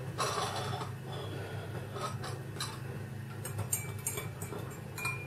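Metal teaspoon stirring in a ceramic mug, clinking against its sides in light, irregular taps, with a short ring near the end. A steady low hum runs underneath.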